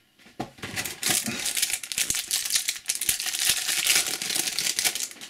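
Foil wrapper of a Match Attax trading-card pack crinkling and crackling as it is opened by hand, a dense rustle with many sharp clicks.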